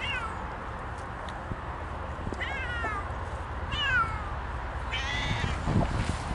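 Siamese cat meowing: four short calls spread out, most dropping in pitch, over a steady low rumble.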